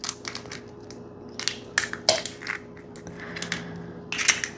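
A raw egg being cracked open: several short, sharp crunching cracks of eggshell, a few near the start, more around two seconds in and another pair near the end.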